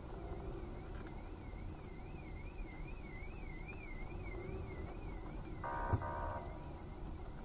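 Steady road and engine rumble of a moving car, with a faint warbling, siren-like tone for most of the stretch. Near the end a car horn sounds once, briefly.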